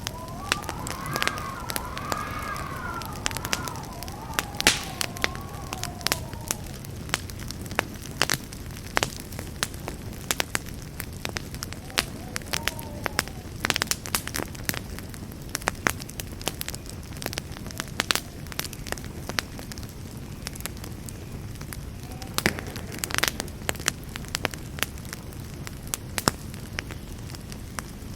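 Wood campfire burning: a steady low rush of flame with frequent sharp crackles and pops at irregular times. A wavering whistle rises and falls through the first few seconds and comes back briefly a couple of times later.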